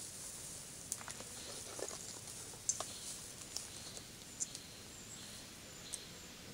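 Dry grass tinder rustling and crackling as it is worked into a bundle by hand, with a few short, sharp crackles scattered through it.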